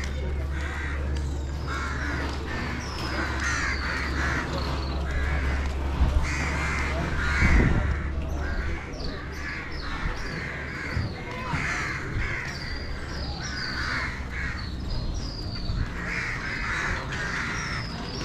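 A chorus of many birds calling from the trees, short harsh calls repeated over and over with higher chirps among them. A low rumble runs beneath for the first half and stops about eight seconds in.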